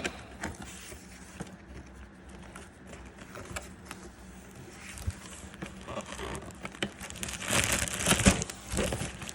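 Packaging being handled and crinkling, with small clicks and rustles, getting louder and busier near the end.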